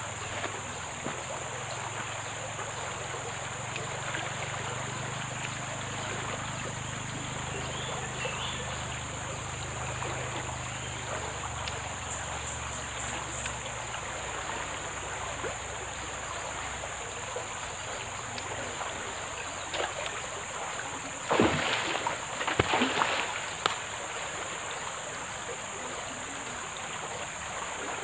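Steady riverside ambience of flowing water under a constant high insect drone. About three quarters of the way through, a short burst of louder splashing noise stands out.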